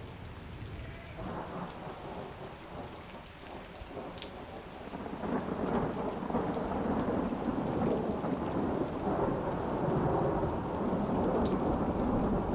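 A recorded thunderstorm: steady rain, with a long rolling rumble of thunder that swells about five seconds in and keeps going, louder.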